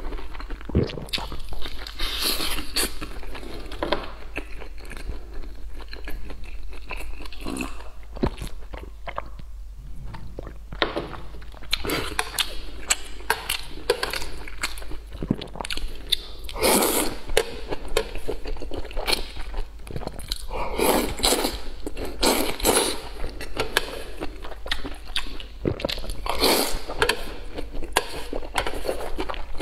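Close-miked chewing and slurping of braised long green beans in sauce: a steady run of wet mouth noises and bites, with several louder slurps in the second half.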